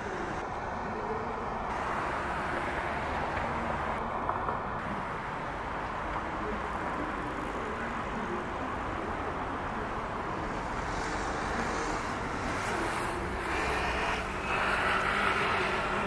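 Steady road traffic noise from passing cars, swelling a little near the end.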